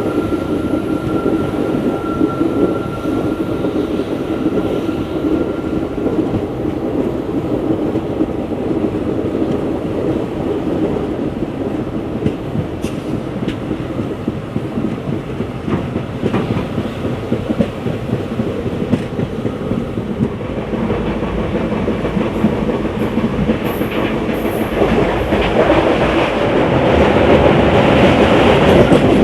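Passenger train running along the track, its wheels clattering over the rail joints. It grows louder near the end.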